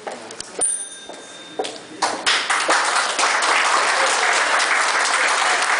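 Audience clapping, starting about two seconds in and going on steadily. Just before it comes a short knock with a brief ringing ping.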